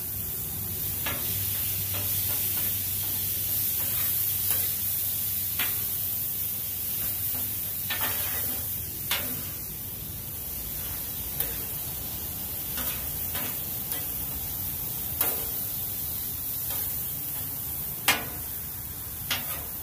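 Sliced steak, peppers and onions sizzling on a flat-top griddle, with a metal spatula scraping and clacking against the griddle about a dozen times, irregularly, the loudest clack near the end.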